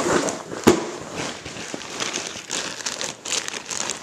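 Plastic packaging crinkling and rustling as it is handled, with one sharp knock about 0.7 s in.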